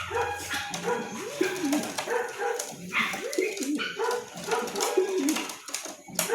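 Many racing pigeons cooing together, a dense chorus of short overlapping coos.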